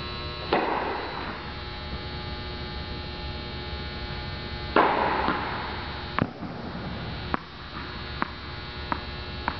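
Two flat tennis serves, each a sharp crack of racquet on ball ringing out in a large indoor tennis hall, about four seconds apart. Several lighter, shorter ticks follow, typical of balls bouncing on the court. A steady electrical hum with faint high tones runs underneath.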